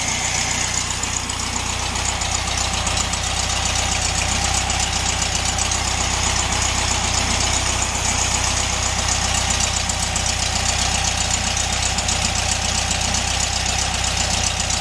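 1967 VW Beetle's air-cooled flat-four engine idling steadily.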